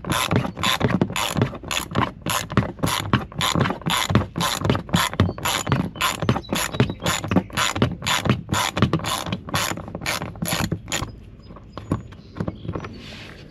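Hand ratchet with a 10 mm socket clicking rapidly, about three clicks a second, as a bumper bolt is ratcheted out. The clicking stops near the end, once the bolt comes free.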